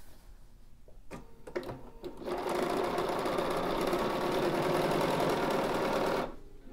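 Bernina sewing machine stitching a seam through fabric and foundation paper. After a couple of light clicks it runs steadily for about four seconds, then stops abruptly.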